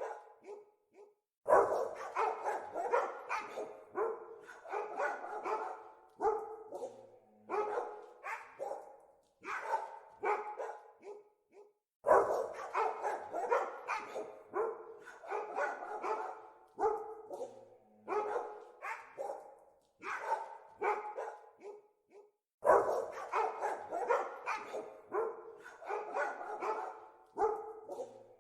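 Several dogs barking rapidly and continuously, their barks overlapping, with short pauses. The same stretch of barking repeats about every ten seconds, as in a looped recording.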